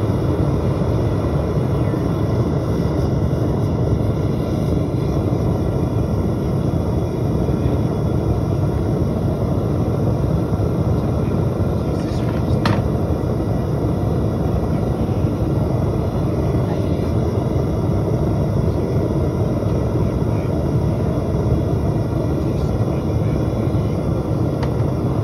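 Metal-melting furnace running steadily with a constant low rushing noise while the aluminium in its crucible is molten.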